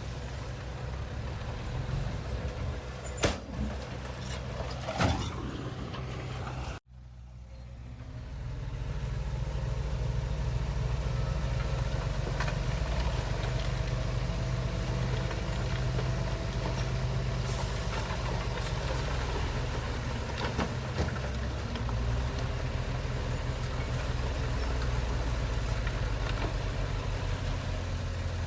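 Heavy diesel earthmoving machinery running with a steady low rumble, with two sharp knocks a few seconds in. The sound cuts out abruptly for a moment about seven seconds in, then returns slightly louder and steady.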